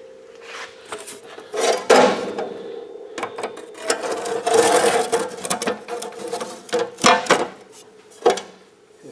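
Metal clanks, clicks and scraping as the cutting wheel is changed on an abrasive chop saw, with handling knocks loudest about two seconds in and around the middle.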